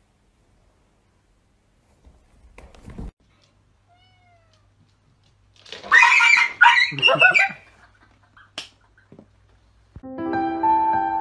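Cats meowing and yowling loudly for about two seconds a few seconds in. A soft piano tune starts near the end.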